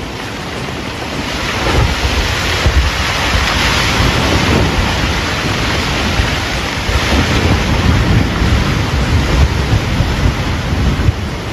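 Strong wind buffeting the microphone: a loud, steady rushing noise with heavy gusting rumble.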